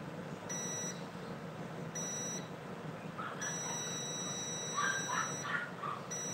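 Digital multimeter's continuity buzzer giving a high, steady beep that switches on and off three times as the probes touch components, each beep marking a line that is shorted.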